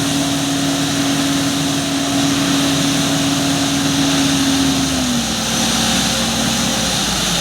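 Engine of a road-construction machine running steadily under a wide mechanical noise, its pitch dropping slightly about five seconds in.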